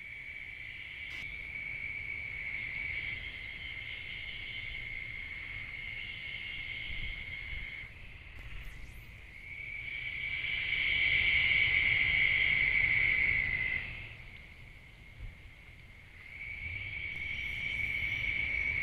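Night insects trilling: a steady, high, unbroken buzz-trill that runs for several seconds at a stretch. It breaks off twice and is loudest in the middle stretch.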